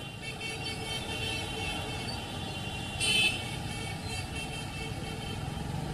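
Street traffic on a rain-wet road: a steady wash of engine and tyre noise, with a brief louder burst about three seconds in.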